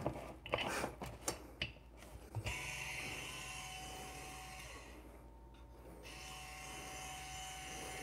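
A few handling clicks, then the Varia VS3 conical-burr coffee grinder's motor starts about two and a half seconds in and runs with a steady hum and whine. It dips briefly about five seconds in and picks back up.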